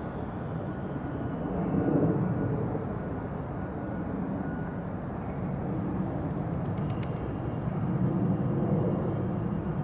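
Steady low outdoor background rumble, swelling a little about two seconds in and again near the end.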